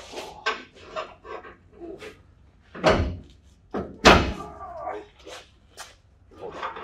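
Metal clanks and knocks of steel suspension parts and tools being worked at a pickup truck's rear axle and leaf-spring hardware, with two loud bangs about three and four seconds in.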